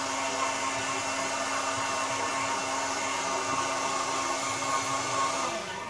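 Electric heat gun blowing hot air steadily with a faint hum, warming a vinyl decal to soften and stretch it over the fairing; it cuts off near the end.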